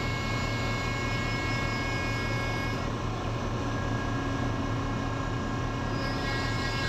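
Hydraulic deck crane running, heard from inside its operator's cab as a steady low drone with a constant hum, joined by a higher steady tone about three seconds in that fades a few seconds later.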